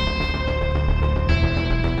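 Background music of held notes, with a new chord coming in a little over a second in.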